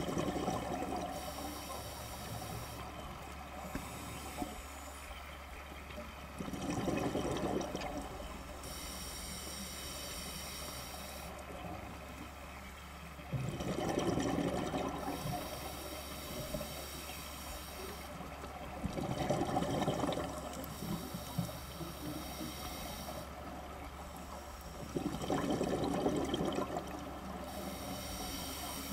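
Scuba diver breathing through a regulator underwater: a gurgling burst of exhaled bubbles about every six seconds, with a fainter hiss from the regulator on each inhale in between.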